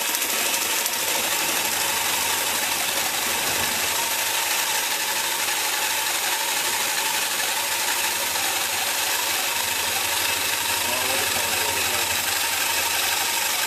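Electric sabre saw (jigsaw) running steadily, its reciprocating blade cutting down into a raw butternut squash.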